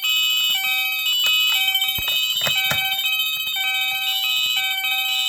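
Electronic fire alarm horn on a Moose Z900 panel's bell circuit, sounding continuously on its high-volume setting: a shrill, steady high tone with shorter tones stepping up and down beneath it. A few sharp clicks come through around the middle.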